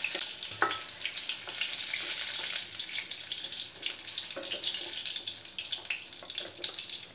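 Pointed gourds (potol) sizzling and crackling in hot mustard oil in a kadai, with a few knocks and scrapes of the spatula against the pan as the fried gourds are lifted out.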